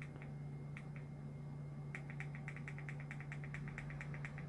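Remote control buttons clicking, pressed to step the LED ceiling light's colour temperature: two pairs of clicks, then a fast run of about eight clicks a second from about two seconds in. A steady low hum underneath.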